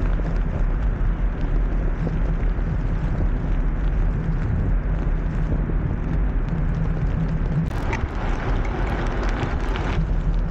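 Wind buffeting the microphone of a camera riding low on a moving blokart, over the rumble of its small tyres rolling on asphalt. The noise turns hissier for a couple of seconds near the end.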